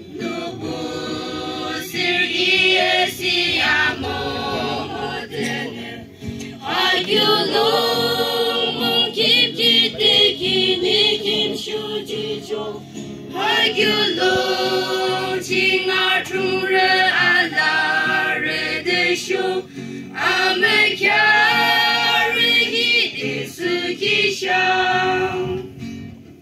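Mixed choir of young men and women singing together, in long phrases with short breaks about every seven seconds.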